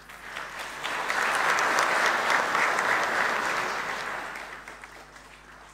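Audience applauding: the clapping swells over the first second, stays strong for a few seconds and dies away near the end.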